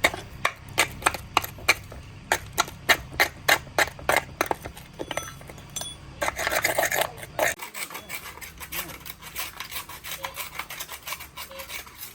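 Hand-tool work on parts of a concrete mixer under repair: sharp taps at about three a second, then a brief rasping scrape, then a few lighter ticks. A low steady hum underneath stops just after the scrape.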